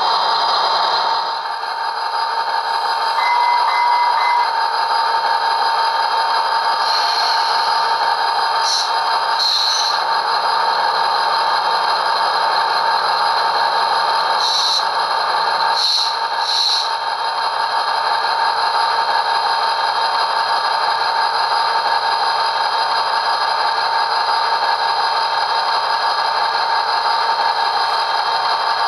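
Sound decoder in an HO scale Rapido F40PH-2D model playing steady diesel locomotive engine sound through its small onboard speaker as the model runs at crawling speed. A few short, higher sounds come and go over the steady engine sound.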